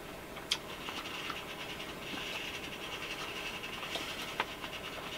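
Quiet eating sounds: a man chewing a mouthful of food, with a sharp click about half a second in and a few faint ticks later.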